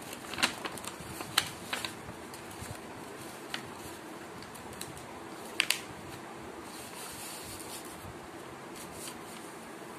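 Sheet of paper rustling and crackling as it is folded and creased by hand, with a few sharp crinkles (the loudest about half a second, a second and a half, and five and a half seconds in) over a steady low background hum.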